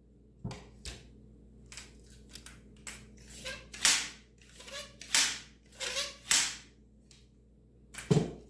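Clicks, clacks and scrapes of a Senco pneumatic stapler's magazine being handled and loaded with staples, working against its stout spring. There are a dozen or so irregular sharp knocks, the loudest about four, five and six seconds in and again near the end.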